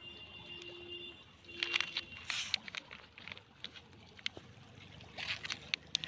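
Crinkling and rustling of a plastic snack packet as it is picked up from the ground and pushed into a carry bag, in two bursts: about a second and a half in, and again near the end. A thin steady tone sounds through the first second or so.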